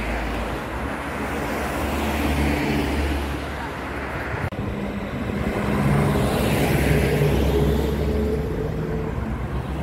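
Street traffic: cars and a truck passing on the road, a steady hum of engines and tyres that swells to its loudest about six to eight seconds in.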